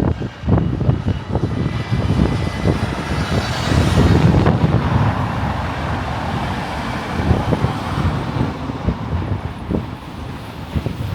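Road traffic passing close by, one vehicle swelling up and fading away about four seconds in, with wind buffeting the microphone.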